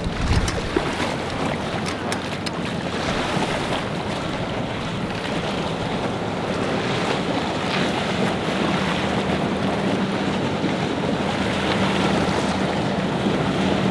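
Boat engine running amid breaking surf, with wind buffeting the microphone; the steady engine drone grows stronger about halfway through.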